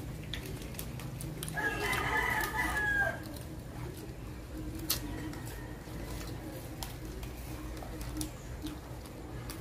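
A rooster crowing once, about two seconds in, for about a second and a half, over a low steady background hum.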